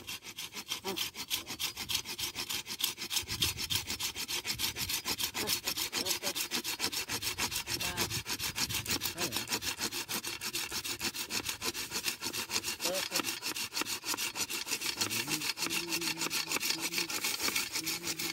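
Hand saw cutting through a dry wooden branch, in rapid, even back-and-forth strokes that keep going steadily.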